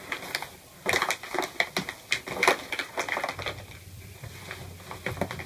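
Padded paper mailer envelope being opened by hand: paper tearing and crinkling in a quick run of irregular crackles, densest from about a second in to past the middle, then a few softer rustles.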